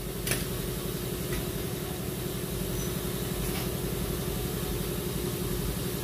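A motor runs steadily with a low, fast-fluttering hum, and a few faint light clicks come over it.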